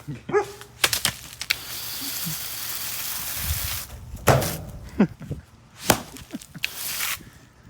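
A burnt-out microwave being struck hard several times, with sharp smacks of a broom on its metal case. Between the blows there is a steady hiss lasting a couple of seconds, and a shorter one near the end.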